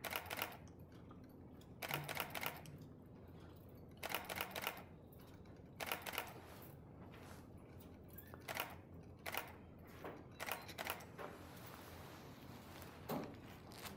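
About eight short bursts of rapid camera shutter clicks, spread a second or two apart, over a low room hum.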